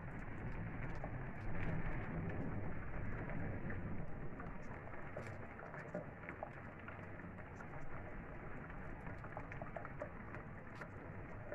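Heavy rain falling steadily, with many small drops ticking on the window glass and surfaces.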